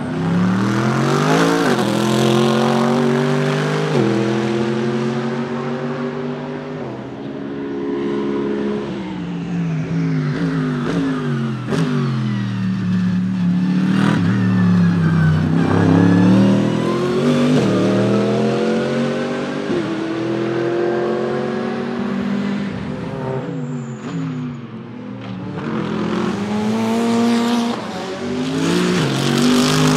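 Mercedes-AMG GT3 Evo race cars' naturally aspirated V8 engines at full throttle, climbing in pitch through the gears with a sharp drop at each quick upshift every couple of seconds. Cars pass by one after another.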